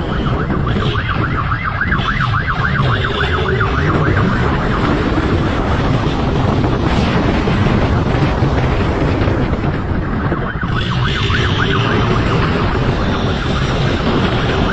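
Siren warbling rapidly in two spells, from about half a second in and again about ten seconds in, over the steady running of a motorcycle engine and rushing road and wind noise at speed.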